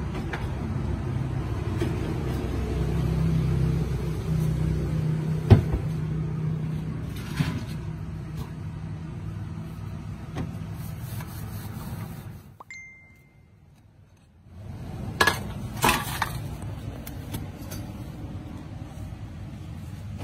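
Street traffic: a motor vehicle's engine running, loudest in the first half, with a sharp click partway through. The sound drops almost out for about two seconds, then a few sharp clinks of dishes or cutlery come through.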